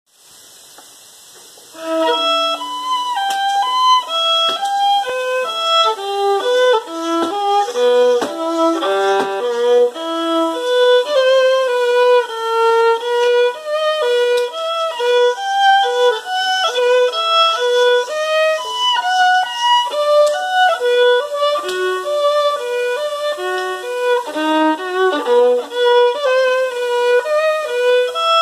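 Unaccompanied violin playing a melody of short, quick notes, starting about two seconds in.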